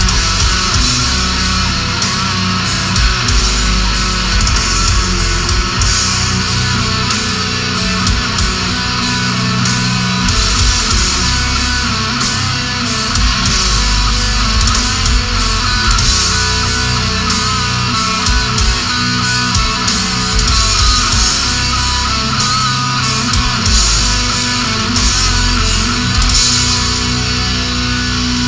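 A death metal band playing live: heavily distorted electric guitars and bass over steady, dense drumming with frequent cymbal and snare hits.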